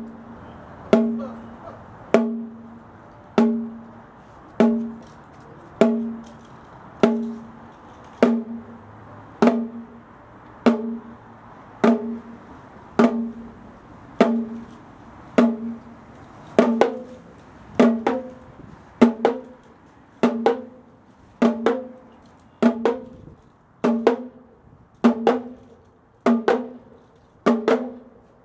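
Tuned bongos struck with wooden sticks, each stroke ringing briefly on one pitch, about once every 1.2 seconds. From about halfway a second quick stroke joins most beats, as the repeating pattern fills in beat by beat.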